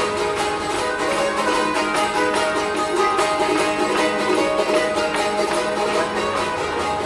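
Music playing steadily, a continuous run of pitched notes with no break.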